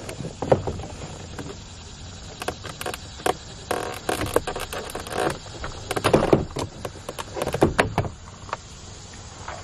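Plastic interior door panel of a 2008 Dodge Ram being pulled loose by hand: irregular plastic clicks, knocks and rattles as the panel's clips let go, with louder clusters about half a second in, around four, six and eight seconds.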